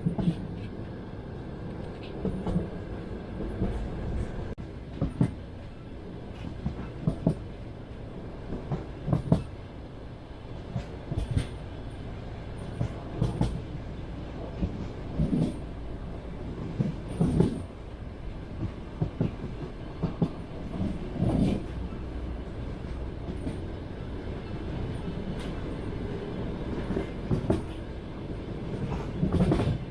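Passenger train's wheels clattering over rail joints, heard from inside the carriage: clusters of knocks about every two seconds over a steady low rumble.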